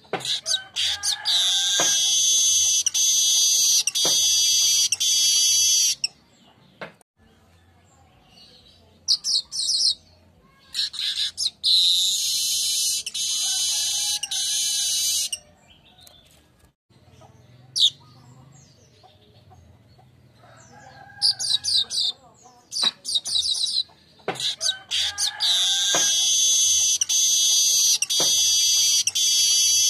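Manyar (weaver birds) singing in repeated bouts of several seconds of high, buzzy rattling song, with short chirps and quieter pauses between the bouts.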